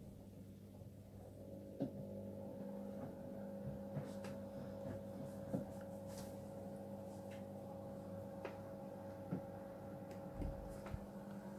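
Miele W1 WKF 130 WPS front-loading washing machine running: a steady motor hum with a few fixed tones, which strengthens about a second in, and scattered light clicks and knocks over it.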